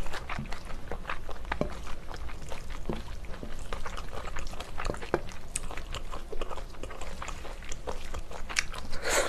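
Close-miked chewing of spicy stir-fried octopus (nakji-bokkeum) with rice: wet, irregular mouth smacks and clicks as the chewy octopus is worked, with chopsticks moving in the bowl. A louder short burst comes near the end.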